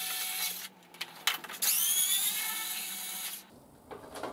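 Small electric screwdriver whirring as it undoes motorcycle fairing screws, in two runs. The second run rises in pitch as it spins up, and a couple of clicks fall between. The footage is fast-forwarded, which raises the pitch.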